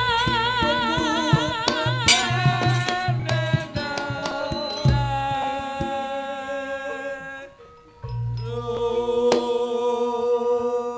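Javanese gamelan music: a female singer holds notes with a wide vibrato over kendang drum strokes and struck percussion. The music drops away briefly about three-quarters of the way through, then resumes with a held note and a drum stroke.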